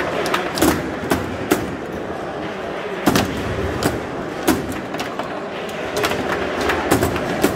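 Foosball being played: the ball is struck by the players' rod-mounted figures and the rods knock against the table, giving sharp, irregular clacks and knocks, about ten of them. Under them runs a steady hall background of voices.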